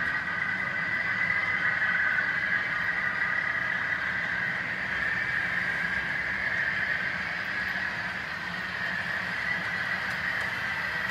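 HO scale model freight train running on the layout: a steady whirring hum of the model locomotives and wheels on the track, strongest in a high-middle band, with no sharp clicks.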